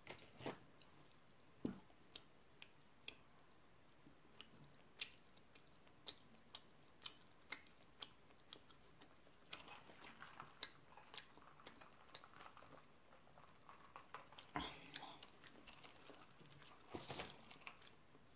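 Quiet close-miked chewing of gummy worm jelly candy: irregular wet mouth clicks and smacks, a few each second, with squishier bursts of chewing now and then.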